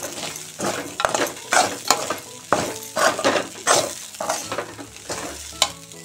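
Metal spatula stirring and scraping poha against a metal kadhai in a quick, irregular run of strokes, with the frying sizzle underneath.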